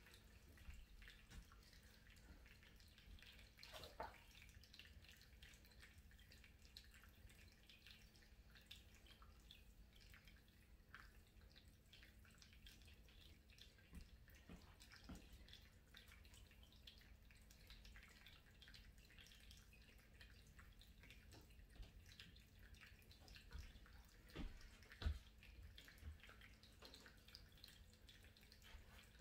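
Near silence: room tone with a faint steady hum, scattered faint clicks, and a few soft low knocks near the end.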